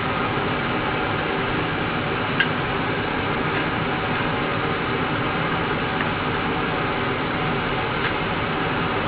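A steady rushing noise throughout, with a few short faint clicks and scrapes from a small metal scraper working old foam surround and glue off the rim of a JBL ceramic-magnet woofer's basket.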